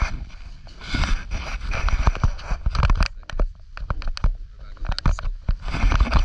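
Irregular clicking and clacking from the camera rig rattling, several sharp knocks a second over a steady rushing noise.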